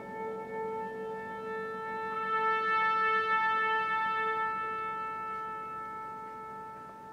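Orchestral music: a long held chord of sustained tones. About two seconds in it swells as higher tones join, then slowly fades, while two of the middle tones pulse gently.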